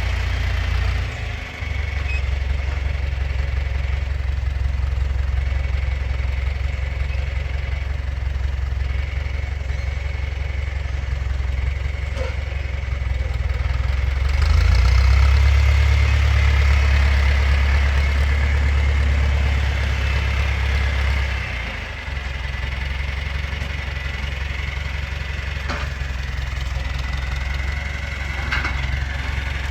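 John Deere tractor engine running steadily. It gets louder for several seconds just past the middle, then eases back, with a thin high whine running over it.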